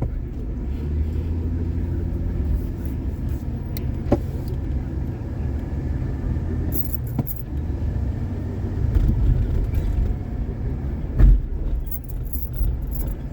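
A car being driven through city streets: a steady low rumble of road and engine noise, with a few sharp clicks or rattles and one louder thump about eleven seconds in.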